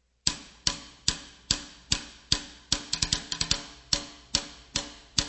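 Opening of a music track: a sharp, clicky percussion beat of about two and a half strikes a second, with a quick fill of extra strikes about halfway through.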